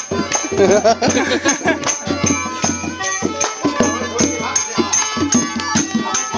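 Village folk music for a rain dance: a quick, steady beat of sharp percussive strikes and handclaps, with voices singing and calling over it.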